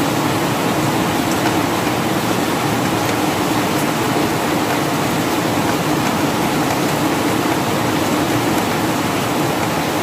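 Steady rain falling on a garden, an even hiss that keeps up without a break.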